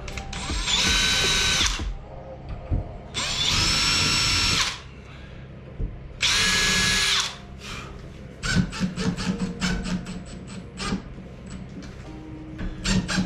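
Power drill-driver driving screws to fix a door handle's backplate: three separate runs of about a second each, each a steady whine. These are followed by a string of light clicks and taps.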